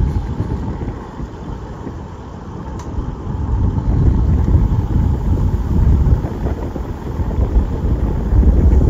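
Wind buffeting the microphone of a camera riding along on a moving road bicycle: a low, gusting rumble that grows louder about three and a half seconds in.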